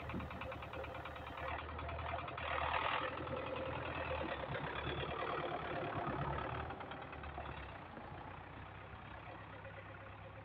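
Farm tractor engine running with a steady clatter while it carries a hay bale on its rear fork, growing fainter from about seven seconds in.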